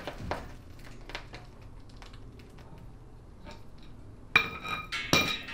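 Floor jack being let down by its handle with faint clicks, then about four seconds in a sudden metal clank with a ringing creak as the truck's front suspension drops onto its coil-over shocks.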